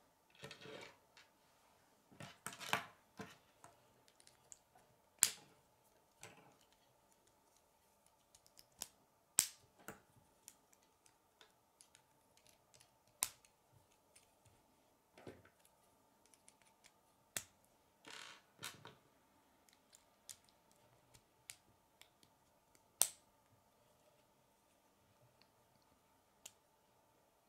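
Plastic K'nex rods and connectors clicking as they are snapped together and handled: scattered sharp clicks a few seconds apart, with brief rustles of handling.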